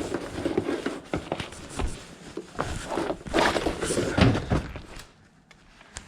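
Irregular knocks, clunks and scuffs of things being handled and set down, with footsteps; the loudest run of clatter comes a little past halfway, and it goes quieter near the end.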